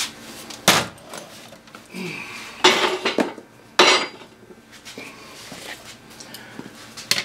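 Metal tools and parts clanking and clinking as they are handled and set down on a steel workbench, with a few sharp knocks spread through the handling.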